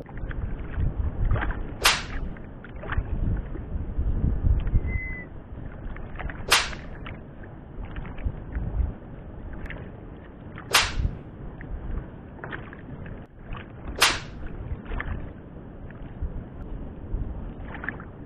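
Wind rumbling on an open-air microphone over the sea, with four sharp whooshes spaced about four seconds apart.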